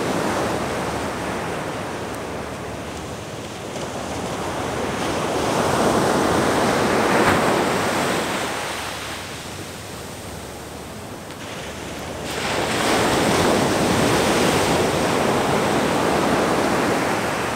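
Ocean surf breaking on a sandy beach, a steady wash of noise that swells and fades: one loud swell about halfway through and a second that comes in suddenly about two-thirds of the way through.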